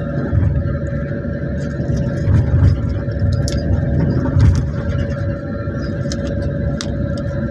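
Cabin noise of a moving vehicle: a steady low rumble from the engine and road, swelling briefly twice, with a steady hum and scattered small rattles and clicks.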